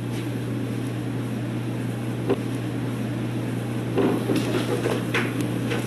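A steady low hum over a light background hiss, with a few faint clicks about four to five seconds in.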